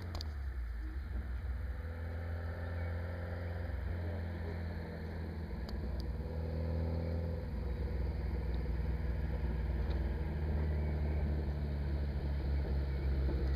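Air-cooled 2.0-litre Porsche 914 flat-four with dual Weber carburettors, driving a Ritter VW buggy and heard from a distance as it approaches. Its note rises and falls as it drives, and it gets gradually louder.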